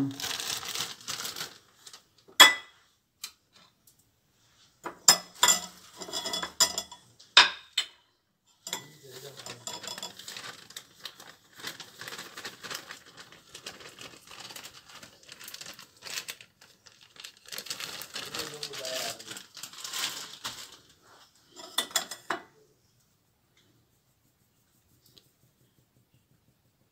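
A plastic bag of ground turmeric crinkles as the powder is poured into a metal mesh sieve, with long stretches of rustling while it is shaken through. Utensils, the sieve and the ceramic bowl clink sharply a few times.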